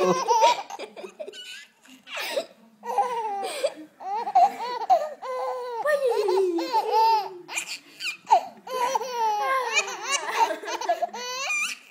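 Young baby laughing: a string of short, high-pitched giggles and squeals in bursts with short pauses between. These are among the baby's first real laughs.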